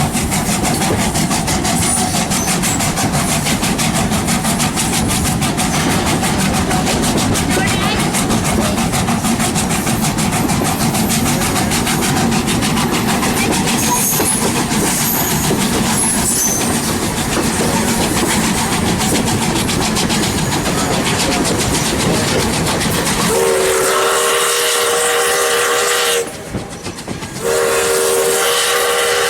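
Passenger train riding along with a steady rumble and rattle of wheels on the track, then the steam locomotive's whistle sounding two long, chord-like blasts near the end, with a short gap between them.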